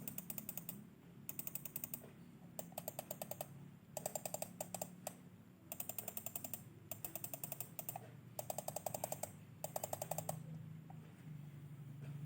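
Scroll wheel of a Zeus MK-440 mouse being spun in short flicks: bursts of rapid, evenly spaced detent clicks, about eight in all with short pauses between, stopping about ten seconds in.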